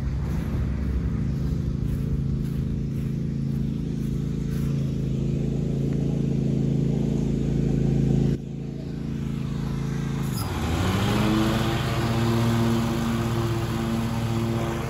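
Husqvarna zero-turn riding mower's engine running steadily. After a short break about two-thirds of the way in, its note dips and then climbs to a higher, steady speed.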